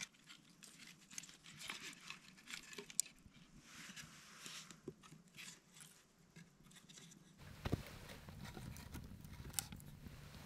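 Small fire of wood shavings, cattail fluff and grass crackling faintly as it catches, with scattered pops and snaps. A single knock comes about three quarters of the way through, as a low background rumble sets in.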